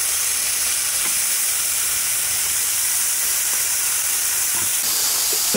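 Hamburger patties sizzling on a Gotham Steel electric smokeless grill as they are flipped with spatulas: a steady, even hiss.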